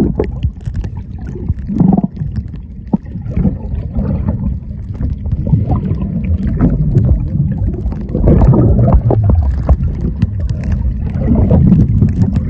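Muffled, uneven low water noise with gurgling and bubbling, recorded with the microphone underwater.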